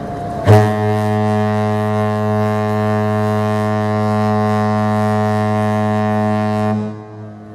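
Cruise ship's horn (Mein Schiff 3) sounding one long, deep blast of about six seconds, starting abruptly and holding a single steady tone before cutting off, as given when the ship leaves harbour.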